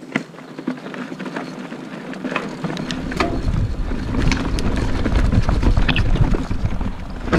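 Mountain bike clattering and rattling over rocks and roots on a technical trail section. A deep wind rumble on the GoPro microphone builds from about three seconds in.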